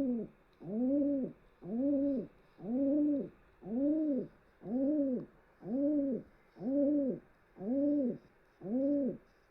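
Domestic pigeon, a former racing pigeon, cooing: a steady run of short 'hoo' notes, about one a second, each rising and then falling in pitch.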